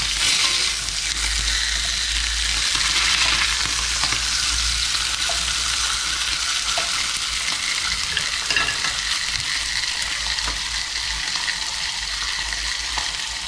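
Perch fillets sizzling steadily in butter in a frying pan, with light scrapes and taps of a wooden spatula moving the fillets.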